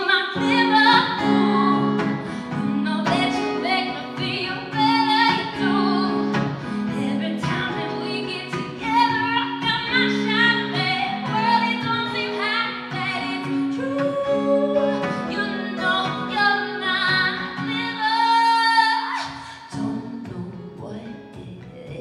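Female voice singing a melody over a strummed acoustic guitar, a live indie pop performance. Near the end the voice holds one long wavering note and stops, leaving the guitar alone and quieter.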